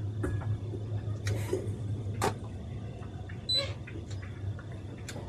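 Twin outboard motors idling with a steady low hum, with a few sharp knocks and clicks of tow line and gear being handled on deck, one with a brief squeak.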